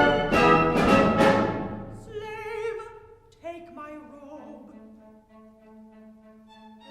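Opera orchestra playing: loud full chords for the first second and a half, then falling away to softer held notes with vibrato, with a new quiet entry about three and a half seconds in.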